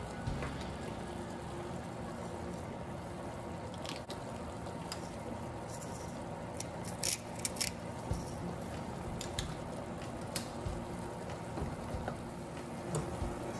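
Chicken pieces simmering in their juices in a metal saucepan, a steady wet hiss, stirred with a wooden spatula. About halfway through, a salt grinder is turned over the pot, giving a short run of sharp clicks.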